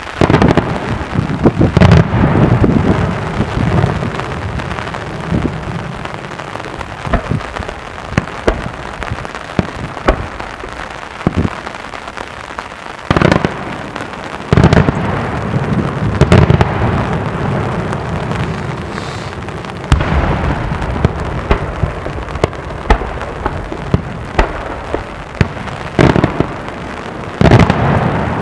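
Daytime aerial fireworks display: a dense, continuous crackling of many small reports, like heavy rain, broken by loud shell bursts every few seconds.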